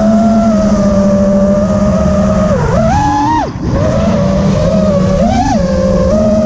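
Four Amax 2308 1800KV brushless motors on a 6S FPV quadcopter spinning Gemfan 51466 props, a loud buzzing whine from the onboard camera's microphone that rises and falls with the throttle. The pitch climbs sharply a little before halfway, drops away for a moment as the throttle is cut, then comes back, with another short climb about two-thirds of the way through.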